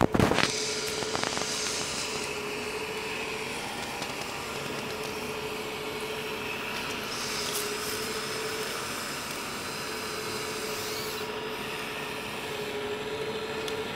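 Hydraulic pumps and electric motors of RC construction models (a CAT 345D excavator and a Liebherr LR 634 tracked loader) running with a steady whine, a humming tone swelling and fading as the machines are worked. A few loud knocks right at the start.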